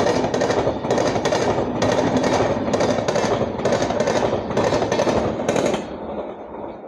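Passenger express coaches passing at speed, their wheels clattering over rail joints in a fast, even rhythm over a steady rumble. The last coach goes by about six seconds in, and the clatter stops and the rumble fades.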